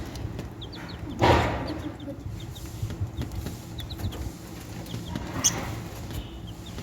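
Baby chicks peeping in short, high cheeps scattered throughout, with a brief loud rustling burst about a second in and a smaller one near five seconds.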